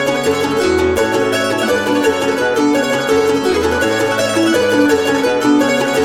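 Music played on gusli, the Russian plucked zither: a quick, continuous run of plucked notes with lower bass notes beneath.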